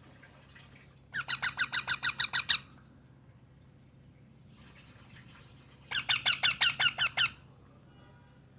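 Baby parrots calling in two quick bursts, each a rapid run of about ten shrill, evenly spaced chirps, the hungry begging calls of chicks.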